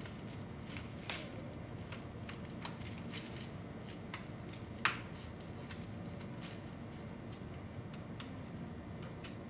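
Scissors snipping through thick honeycomb paper: scattered short sharp snips with paper handling, the loudest about five seconds in, over a low steady hum.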